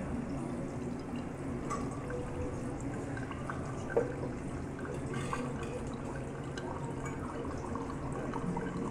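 Thin stream of hot water poured from a gooseneck kettle onto coffee grounds in a V60 pour-over dripper, a soft steady trickle, during the main spiral pour that follows the bloom. One sharp click about four seconds in.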